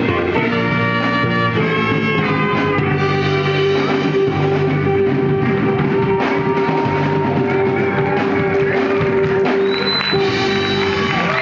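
Live funk-jazz band playing the close of a tune: busy ensemble playing, then a long held final note for about eight seconds that stops just before the end.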